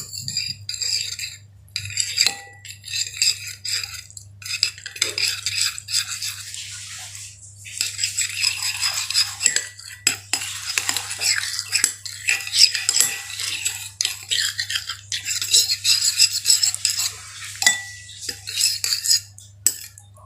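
Slime being stirred in a bowl with a utensil: rapid clicking and scraping of the utensil against the bowl, coming in stretches with short pauses between.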